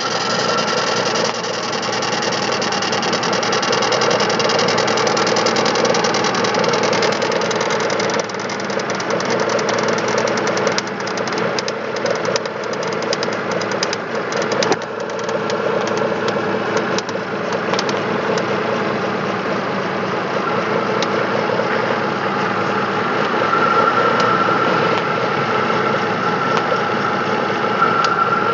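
Chevrolet Spark 0.8 L three-cylinder engine running with a rapid ticking knock, sharpest through the middle stretch, which the owner takes for valve tapping from unadjusted valves, or possibly a camshaft problem. A high whistle of unknown cause stands out near the start and again in the last few seconds.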